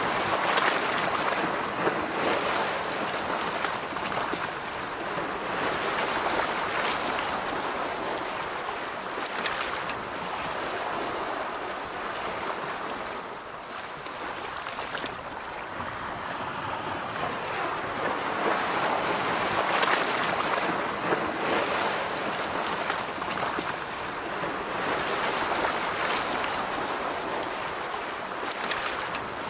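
Ocean surf washing onto a beach, a steady rush of water that swells and falls every several seconds.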